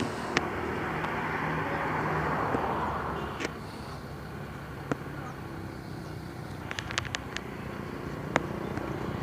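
Road traffic: a vehicle passes, swelling and fading over the first few seconds, with a low engine hum and scattered sharp clicks.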